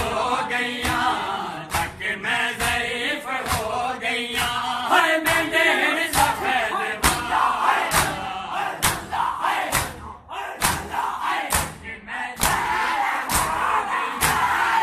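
Crowd of male mourners chanting and shouting together while beating their bare chests with their hands in matam, the slaps landing as sharp cracks in a steady beat of roughly one to two a second.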